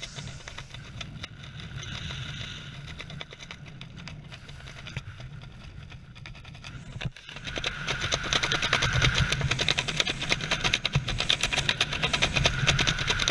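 Wind rushing and buffeting over a helmet camera's microphone during a parachute descent, with a rapid fluttering; it grows much louder about seven seconds in.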